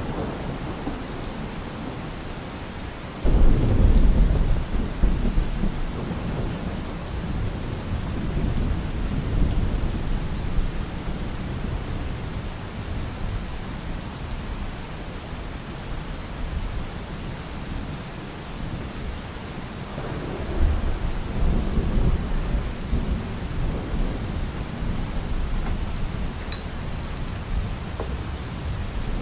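Steady rain with thunder rumbling twice: a sudden low rumble about three seconds in that fades over several seconds, and a second, weaker one about two-thirds of the way through.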